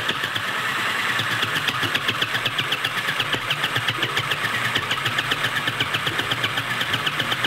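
Battery-powered Sew Cool toy sewing machine running, its small motor humming steadily while the needle mechanism punches through the fabric with rapid, evenly spaced clicks.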